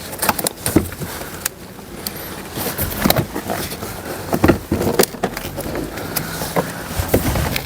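Plastic retaining clips of a 2002 Ford Galaxy's interior door card popping out as the panel is prised off the door: a run of irregular sharp snaps and knocks, with the panel rattling and scraping between them.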